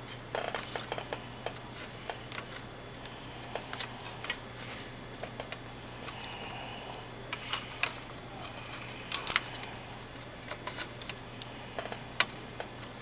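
Small scattered clicks and taps of metal tweezers and fingers working a wire connector loose from an LCD monitor's power supply board, with two sharper clicks about nine seconds in, over a steady low hum.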